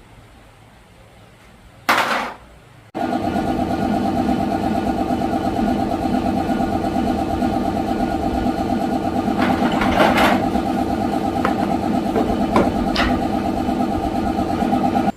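Yamaha Exciter 125cc motorcycle engine being started: a short noisy burst about two seconds in, then the engine catches and runs steadily at idle, with a few brief knocks over it. A test run of the engine after the clutch work.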